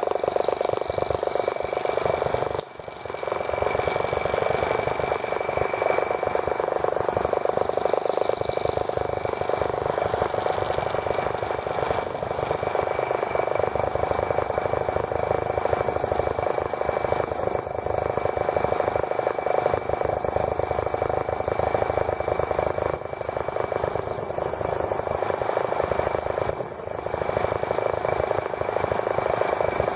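Small gasoline model engine of a T26 toy tractor running steadily at high speed, a fast even buzz with a thin whine above it. Its level dips briefly twice, once about three seconds in and again near the end.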